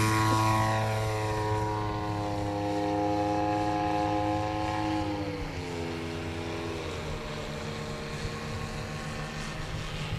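Radio-controlled Yak 54 model aerobatic plane's engine and propeller running hard as it climbs away, the pitch sliding slowly down as it fades. About five to seven seconds in, the engine note drops in steps.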